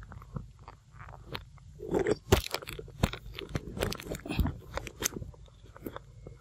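A macaque crunching and chewing fruit close to the microphone: irregular crisp crunches, loudest about two seconds in.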